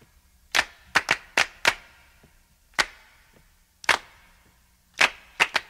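A series of sharp taps, about ten, irregularly spaced: a quick cluster of four a little after the start, single taps around three and four seconds in, and another quick cluster near the end.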